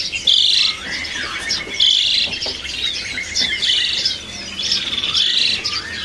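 Caged pied starling (jalak suren) calling again and again: short harsh rattling calls repeated every second or so, with sliding whistles between them. This is the kingfisher (tengkek) call the bird has learned to imitate.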